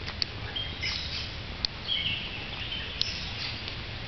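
Songbirds chirping and calling, short high chirps and warbles coming every second or so, with a few sharp high ticks among them and a steady low rumble underneath.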